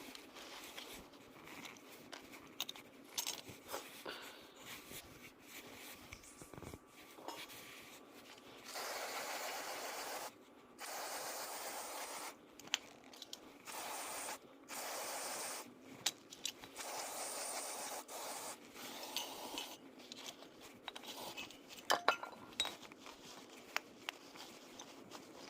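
Hand work on a scooter's CVT drivetrain: small metal parts scraping and clinking, with several steady hisses about a second long in the middle.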